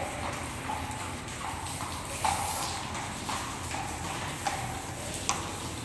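Horse's hooves clopping on a wet concrete floor as it is led at a walk, each step a short clop with a brief ring, at an uneven walking pace of about two steps a second.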